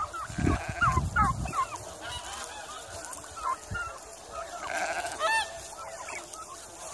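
Domestic turkeys calling close by: a quick run of short yelping calls in the first two seconds over low rumbling, then a few scattered calls, with one sharper call about five seconds in.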